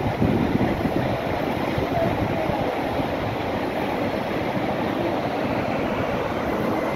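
Steady rushing of water from a monsoon-swollen stream and waterfalls.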